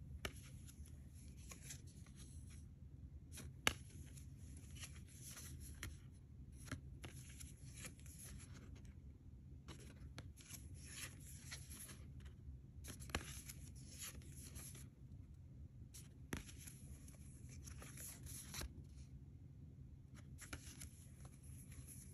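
Tarot cards handled and laid down one after another on a cloth: faint slides and rustles of card stock with a few sharp clicks, the loudest about four seconds in, over a low steady hum.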